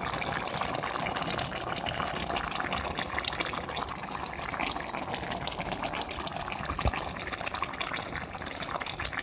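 Steady rushing noise of liquid, with many small crackles throughout.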